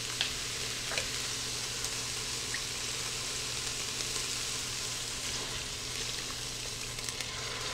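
Chicken pieces sizzling steadily in an Instant Pot's stainless inner pot on the sauté setting, an even hiss.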